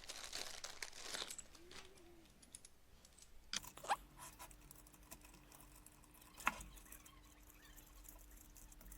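Faint handling noise of camera-cage hardware: small metal parts clicking and scraping as a NATO rail is fitted to a camera cage, with a few sharper clicks scattered through.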